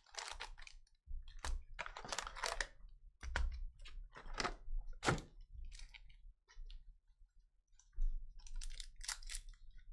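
Foil trading card packs crinkling and clicking as they are pulled out of a cardboard hobby box and stacked on a table: a string of irregular short rustles and taps.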